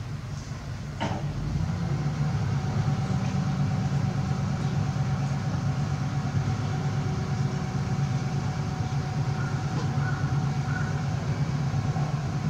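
A machine running with a steady low hum and a faint steady whine above it, swelling in just after a sharp click about a second in.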